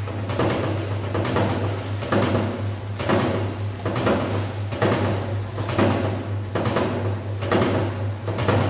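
Washing machine running a cycle: a steady low motor hum with a rhythmic churning surge about once a second as the drum or agitator turns the wash load.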